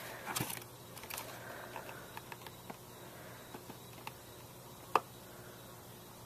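Faint, scattered clicks and taps of small objects being handled, with one sharper click about five seconds in.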